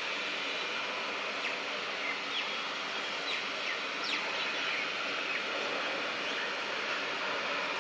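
Steady outdoor background noise, with a few short, quick bird chirps scattered through it.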